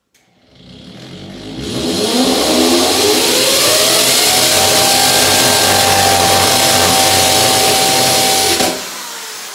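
Hammer drill boring into a brick wall: the motor's pitch climbs as it speeds up over the first two seconds or so, then it runs loud and steady with a hiss of the bit cutting masonry, and near the end the sound drops off to a quieter run.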